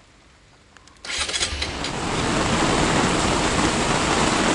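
About a second of near silence, then a sudden switch to the steady, loud hiss of heavy rain pouring down.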